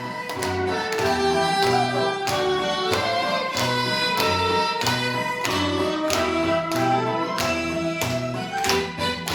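Harmonica music: a trot song played over a backing track, with a melody line above a steady, pulsing bass beat.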